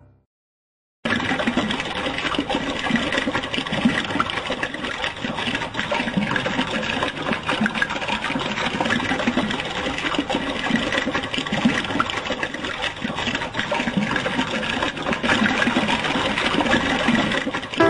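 Water running and splashing steadily in a stream, starting suddenly about a second in.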